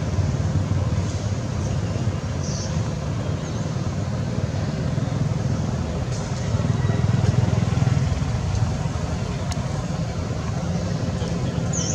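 Steady low rumble of outdoor background noise, with a few brief, faint high chirps.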